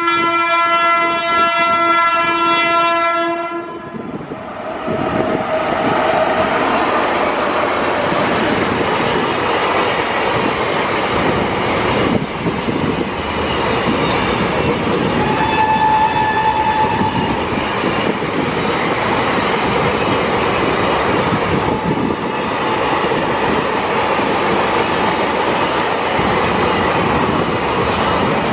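Indian Railways electric freight locomotive sounding its horn in one long blast of about three and a half seconds. A long double-stack container freight train then passes close by, its wagon wheels making a steady rumble and clatter over the rails.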